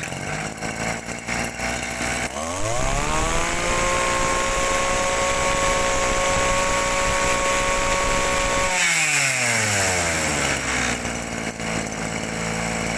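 Kawasaki brush cutter's small two-stroke engine running at idle. About two seconds in it is revved up to full speed, held there for about six seconds, then let back down to idle. It picks up strongly, a sign of a healthy engine.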